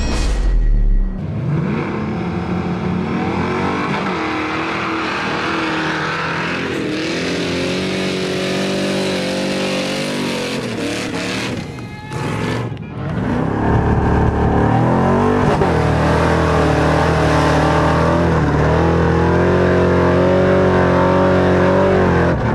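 Opens with a deep boom. Then the Nissan Patrol's swapped LS1 V8, with ported heads, a custom cam and custom headers and exhaust, revs hard and climbs a sand dune on its rear wheels only. The engine note rises and falls, breaks briefly about halfway, then holds steady at high revs for the second half.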